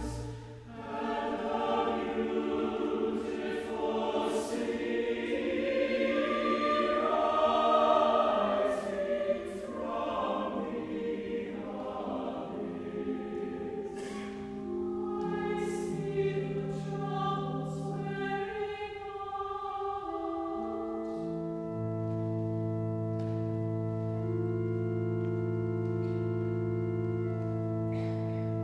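Choir of men's and women's voices singing with pipe organ. Past the halfway point the voices drop away and the organ holds long, steady chords over a low pedal note.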